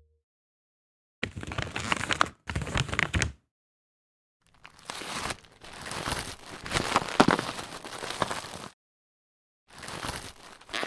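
Plastic bag being moved and handled, rustling and crinkling in several bursts: two short ones, then a longer stretch of about four seconds, and another starting near the end, with silence between them.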